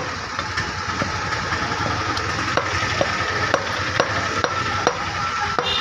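Steel meat cleaver chopping mutton on a wooden log block, sharp chops coming steadily about twice a second, over a steady background hum.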